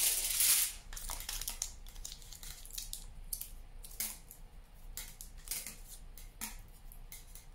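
Aluminium foil crinkling as it is squeezed and wrapped tightly around the joint of a wire armature: a loud rustle at the start, then short scattered crackles.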